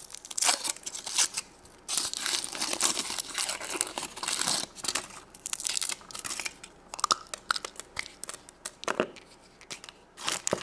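Foil wrapper of a chocolate egg being torn and crinkled open by hand. Dense crackling for the first half, then scattered crinkles and small clicks.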